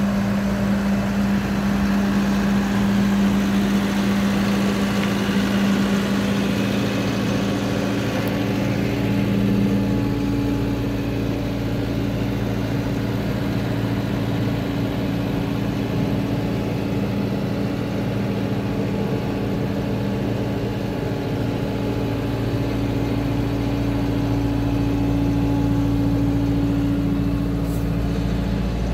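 Diesel engine of a 2011 Doosan 8-ton forklift, a Hyundai D4DD four-cylinder, idling steadily; its tone changes around ten seconds in.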